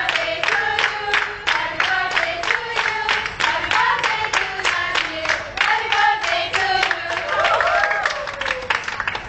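A group of people singing together while clapping in a steady rhythm, about three claps a second.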